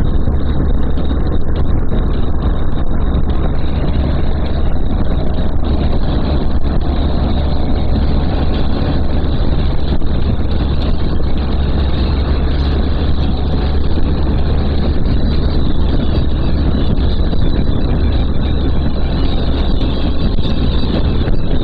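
Motorcycle at speed: steady wind and road rush over the engine's low rumble, with no let-up.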